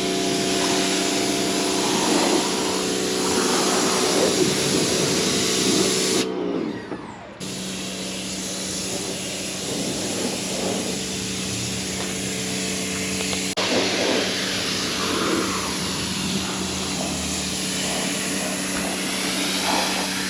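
Pressure washer spraying water onto a car: a steady motor hum under the hiss of the spray. The motor winds down and the spray stops about six seconds in, then both start again about a second later.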